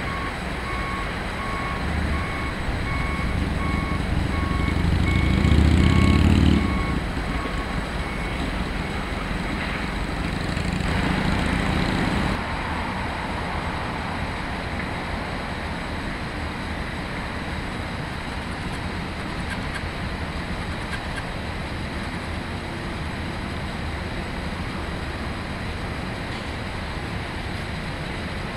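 Swing loader's engine working as it moves along the rails, with its reversing alarm beeping at an even pace through the first several seconds. The engine swells loudest about five seconds in, rises again around eleven seconds, then settles to a steady run as it pulls the loaded gondola.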